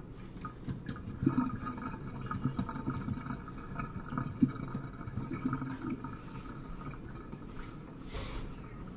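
Kitchen tap water running and splashing into a stainless-steel sink for rinsing, uneven and gurgling with small knocks, easing off after about six seconds.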